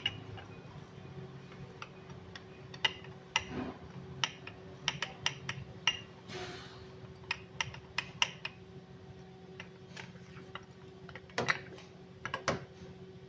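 Irregular sharp metal clicks and clinks from a steel connecting rod and piston being handled and turned over on a workbench, with a few louder knocks near the end and a brief scrape about halfway through.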